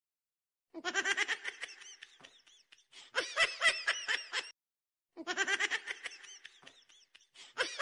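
A high-pitched laughing sound effect, played twice: a rhythmic 'ha-ha-ha' laugh lasting about four seconds, a brief silence, then the same laugh again.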